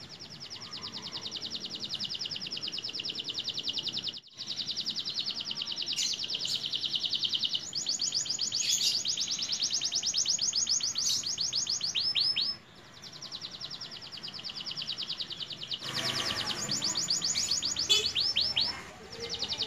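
A young domestic canary, just come into its adult song, sings long, fast trills of rapidly repeated high notes. It breaks off briefly about four seconds in and again about twelve seconds in.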